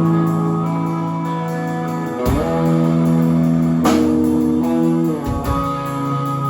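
Live rock band playing: electric guitars holding sustained chords over bass, changing chord three times, each change marked by a sharp hit.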